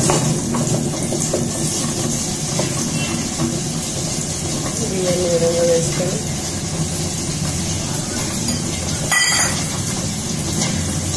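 Tabletop wet grinder running, its stone roller turning in the steel drum as it grinds soaked rice, a steady hum. There is a sharp click a little after nine seconds.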